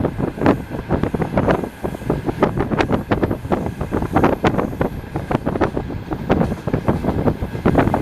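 Passenger train carriage under way, its wheels clacking over rail joints in a quick, irregular series of knocks and rattles.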